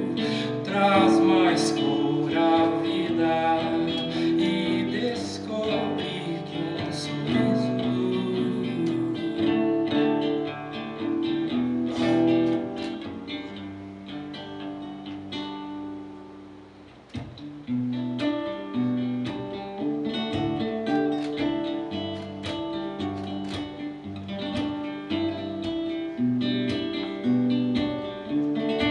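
Acoustic guitar playing an instrumental passage of a song, strummed and plucked chords. It fades down a little past halfway, then comes back in strongly a second later.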